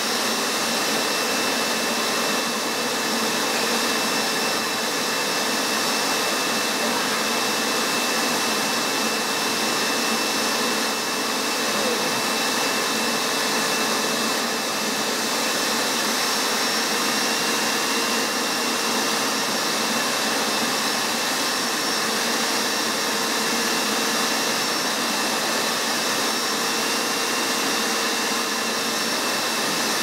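Hoover MAXExtract SteamVac Dual V carpet extractor running steadily, its suction pulling through the hose and hand tool as the tool is worked over wet carpet. An even rush of air with a couple of constant tones held through it.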